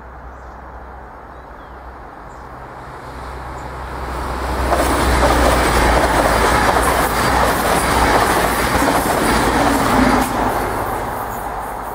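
East Midlands Railway Class 222 Meridian diesel multiple unit passing. The noise of engines and wheels builds over the first few seconds, stays loud for about six seconds with the wheels clacking over the rail joints, then fades near the end.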